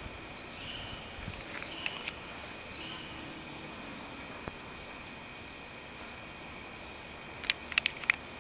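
Steady, high-pitched drone of a tropical forest insect chorus. A few short chirps come about two seconds in, and a quick run of four sharp clicks comes near the end.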